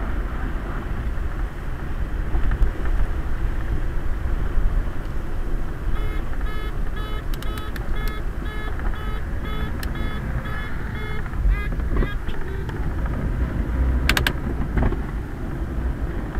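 Steady low rumble of a Quest velomobile rolling over a wet street, tyre and road noise heard from inside the enclosed shell. About six seconds in, a run of short high pitched tones repeats about twice a second for several seconds, with a few sharp clicks a little later.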